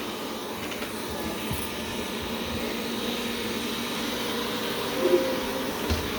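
Wyze robot vacuum running with a steady whir.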